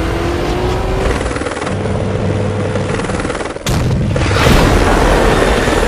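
Loud action-movie sound mix of vehicle noise, with engine pitch rising near the start. A sudden cut a bit over halfway through leads into a louder rushing, rumbling burst.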